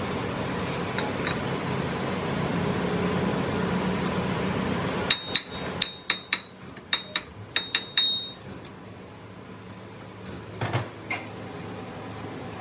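Metal struck in a workshop: a steady hum, then about ten sharp metallic clinks in quick, uneven succession, each ringing briefly at one high pitch, followed by two duller knocks near the end.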